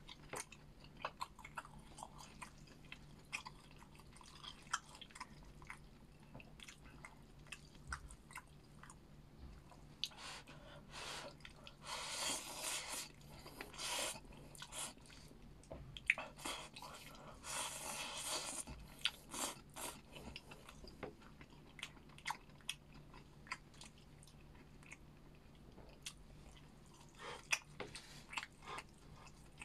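Close-up chewing and biting of stir-fried noodles and pork: many small wet clicks, with a few louder, longer noisy mouthfuls about 12, 14 and 18 seconds in. A low steady hum runs underneath.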